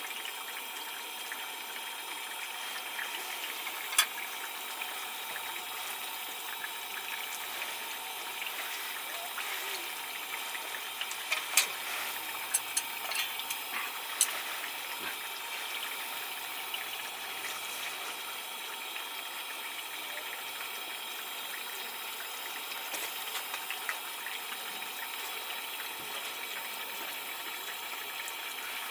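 Steady rush of running water, with a sharp click a few seconds in and a scatter of small clicks and clinks near the middle.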